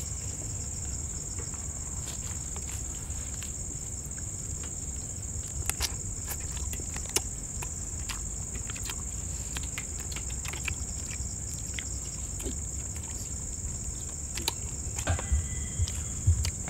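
Steady high-pitched buzz of an insect chorus, with scattered light clicks and knocks and a few low thumps near the end.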